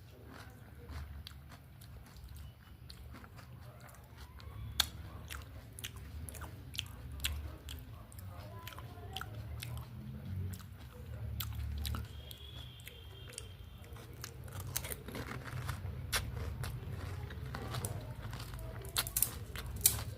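Close-miked eating of pani puri: crisp puri shells cracking in the mouth, then wet chewing and crunching, with scattered sharp cracks and a few louder ones near the end.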